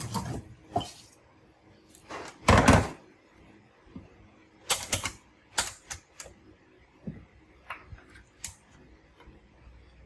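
Irregular clicks and light knocks of tools and small hard parts being handled on a workbench. The loudest sound is a noisy scrape lasting about half a second, a couple of seconds in.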